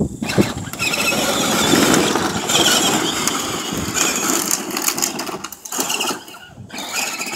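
A child's ride-on Jeep on knobby four-wheeler tires, driving up a hill under load: its drive whirring and the tires working over the ground, with a couple of brief dips near the end.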